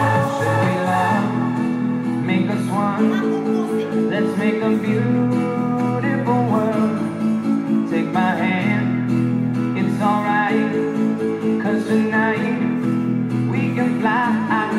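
Dance-pop song playing, with a steady beat, a held bass line and a sung melody.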